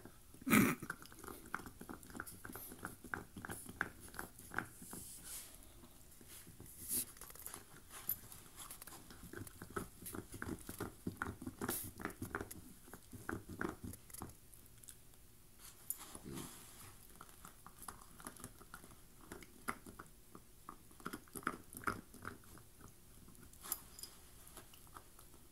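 Corgi gnawing a deer antler: teeth clicking and scraping on hard antler in runs of rapid clicks with short pauses, with one louder knock about half a second in.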